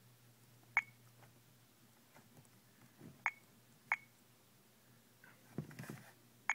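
Honeywell alarm-system touchscreen keypad giving a short beep at each button press as the code to clear a carbon monoxide alarm is entered. There are four beeps, irregularly spaced, and a faint rustle just before the last.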